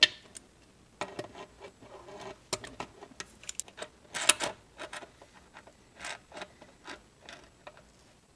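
Irregular metallic clicks and taps of a wrench working on a Ford Escape steering column shaft as it is turned, with a sharp click at the start and a louder one about four seconds in.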